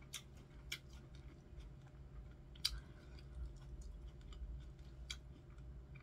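Close-miked chewing of a chicken ranch salad with iceberg lettuce: faint mouth sounds with a few sharp, crisp clicks scattered through, the loudest about two and a half seconds in.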